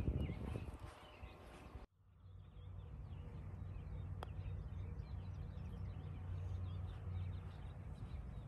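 Birds chirping over a steady low wind rumble on the microphone, with a single sharp click a little after four seconds in: a putter striking a golf ball.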